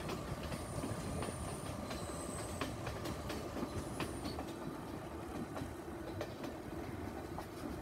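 Passenger train running at a slow, steady speed, heard from an open carriage side: a continuous rumble with the wheels clicking irregularly over the rail joints.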